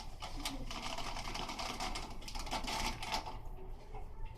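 Dry spaghetti being snapped by hand, a quick run of sharp cracks and crackles that thins out after about three seconds.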